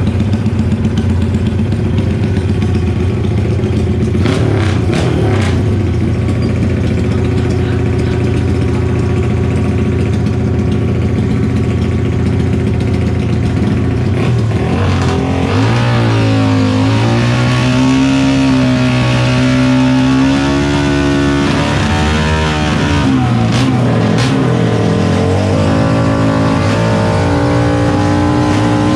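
Tuned racing motorcycle engines running, with a steady idle at first; from about halfway one engine is revved up and down repeatedly for several seconds, then settles to a steadier higher note near the end.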